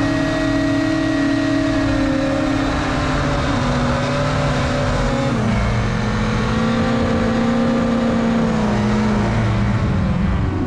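Racing hovercraft's engine and lift/thrust fan running hard, heard from on board. The engine pitch drops sharply about halfway through, then climbs again.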